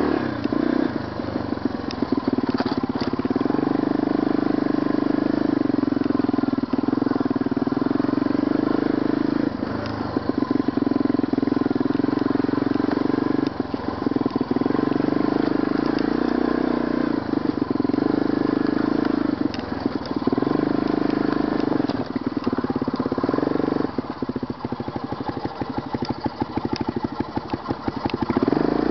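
Honda ATV's single-cylinder engine running as the quad is ridden, the revs rising and falling. For several seconds near the end it runs slower and quieter with a rapid, even putter.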